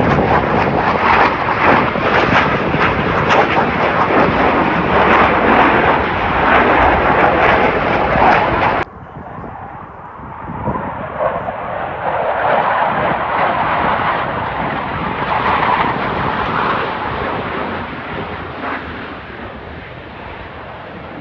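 Jet engines of low-flying Blue Angels F/A-18 Hornets, a loud steady roar that cuts off suddenly about nine seconds in. A quieter jet roar then follows, swelling as a pair of jets passes and fading away.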